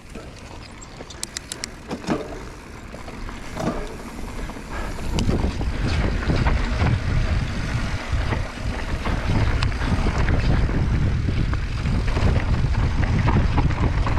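Mountain bike rolling along a dirt trail, with a few quick clicks about a second in. From about five seconds in, as the bike speeds down the singletrack, a loud low rumble of wind on the microphone and tyres running over dirt, with scattered knocks and rattles from the bike.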